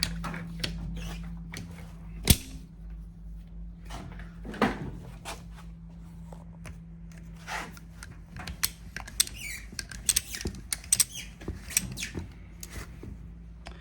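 Handling noises of a homemade strap being undone from a quad bike tyre: a sharp knock about two seconds in, then scattered clicks and squeaky rubbing, over a steady low hum.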